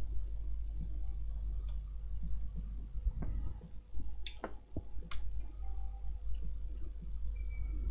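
A few sharp clicks and light knocks, mostly in the middle, from an oscilloscope probe and its cable being handled and hooked up, over a steady low hum.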